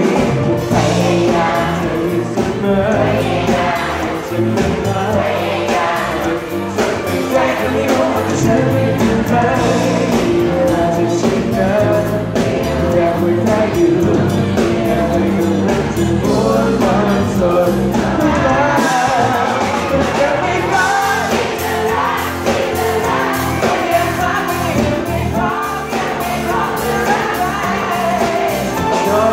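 Live pop band playing: a man singing into a microphone over keyboard and electric guitars.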